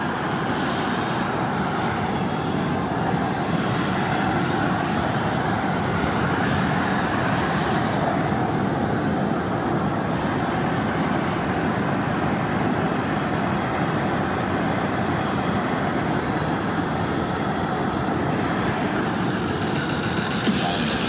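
High-pressure propane burner under a crawfish boil pot, running steadily with an even rushing noise.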